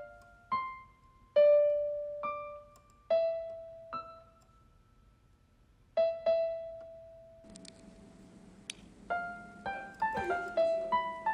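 Background piano music: single notes struck and left to ring out, a short pause, then quicker notes near the end over a faint background hiss.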